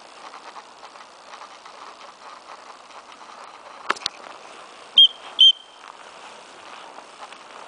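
Two short, loud blasts on a dog handler's whistle, about half a second apart, over the steady swish and rustle of someone moving through long grass. Two sharp clicks come just before the blasts.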